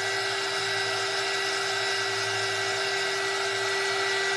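Handheld craft heat gun running steadily, its small fan motor giving a constant whir with a high whine, blowing hot air to dry a wet coat of decoupage glue.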